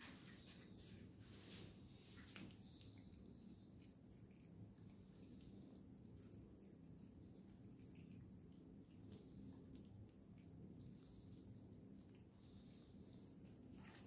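Faint, steady, high-pitched insect trill over a low background hum, with a few faint ticks.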